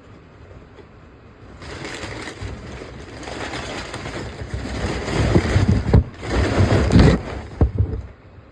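Packaging being rustled and crinkled as the animated Santa figure is unpacked, with several sharp knocks and bumps of handling loudest near the middle.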